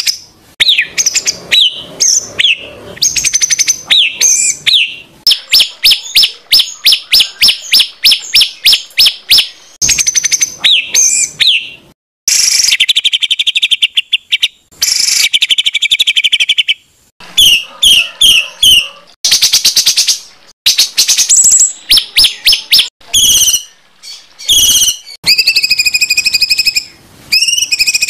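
Songbird song recorded for training competition birds: short whistled notes, a fast train of repeated clipped notes, and two long harsh, rasping phrases, the rough 'shot' calls the recording is made of.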